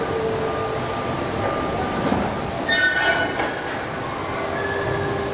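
Car body-shop machinery: industrial robot arms moving with whining servo motors over a steady mechanical hum, with a brief high squeal about three seconds in.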